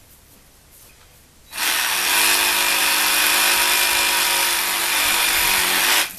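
An electric motor runs steadily under load for about four and a half seconds, starting abruptly about a second and a half in and stopping abruptly near the end, with a dipping pitch just before it stops.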